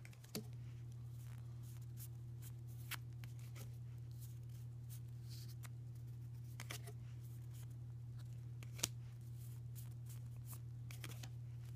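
Trading cards being flipped through one by one in the hand: faint, scattered clicks and slides of card on card, with one sharper click about nine seconds in. A steady low hum runs underneath.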